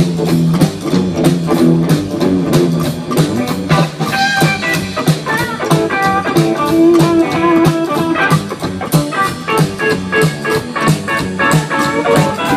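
Blues-rock instrumental break: guitar leading over bass and a steady drum beat, with the guitar line bending in pitch from about four seconds in.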